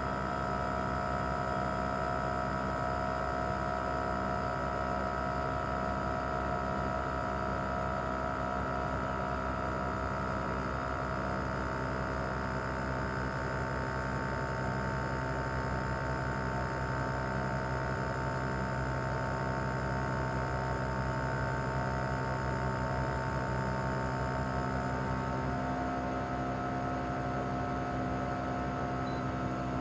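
Mitsubishi Heavy Industries SRC2221T air-conditioner outdoor unit running in cooling mode: its inverter-driven single rotary compressor and fan make a steady hum with several steady whining tones. Near the end the tones start to slide slightly lower as the compressor speed changes.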